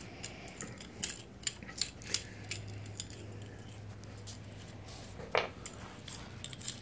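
Light metallic clicks and clinks as a brushless outrunner motor, its aluminum angle bracket and steel bolts are handled and fitted together by hand. A quick run of small clicks comes first, then a sparser few, with one sharper knock about five seconds in.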